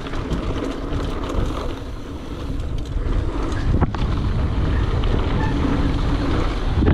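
Wind rushing over an action camera's microphone, with tyre rumble and rattle from a Dartmoor Blackbird mountain bike riding down a dirt trail. A single sharp click comes about halfway through.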